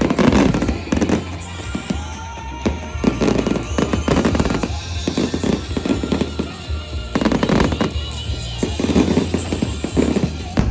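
Aerial fireworks bursting, many bangs and crackles in quick succession, over music playing underneath.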